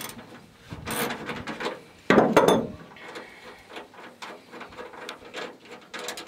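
A 3/8-inch bolt and washer being backed out of a freshly collapsed steel rivet nut with a hand tool: irregular metal scraping and clicking, loudest about two seconds in. The washer has gouged into the metal, so the bolt turns stiffly.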